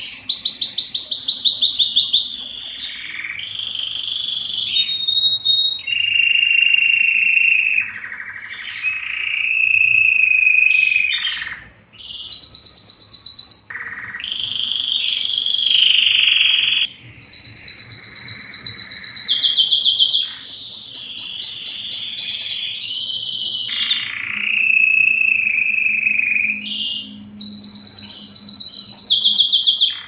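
Domestic canary singing a long, continuous song: fast trills of rapidly repeated sweeping notes alternating with lower rolling phrases, with only brief breaks.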